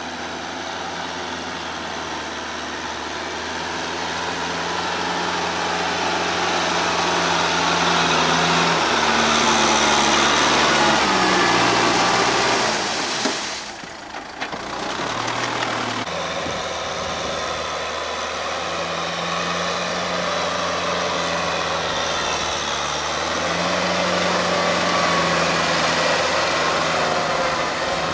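Kubota M6040SU tractor's diesel engine running under load while pulling a rotary tiller through wet paddy mud. The engine note shifts in pitch several times and dips briefly about halfway through.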